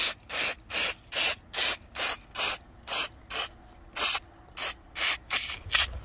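Aerosol can of silicone lubricant sprayed in short hissing bursts, about three a second with a brief pause midway, into the rubber seal around a sliding-door window to cure a squeaking glass.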